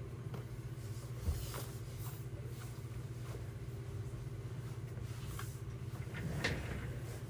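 Steady low mechanical hum, with a few light knocks and rustles as clothes are handled.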